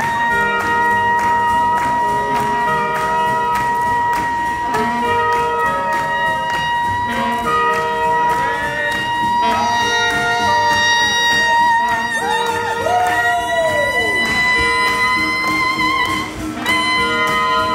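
Live swing-jazz horn section of saxophones and trumpet playing in a large hall: one horn holds a single long high note without a break while the others punch short repeated riffs underneath. About two-thirds through, a horn bends down in a falling smear, and the held note rises a little near the end.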